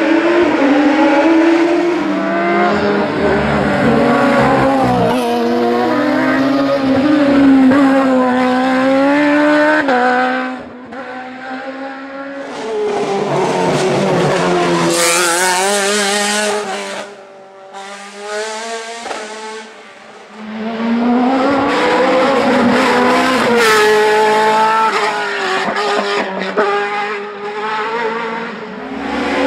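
Hill-climb race car engines running hard through the bends, the pitch climbing through each gear and dropping back at every upshift and braking point. The sound fades twice, about ten and seventeen seconds in, before a car comes close again.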